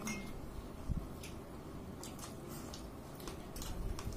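Eating sounds during a mukbang: scattered faint clicks and smacks of chewing, with a soft low thump about a second in and another near the end.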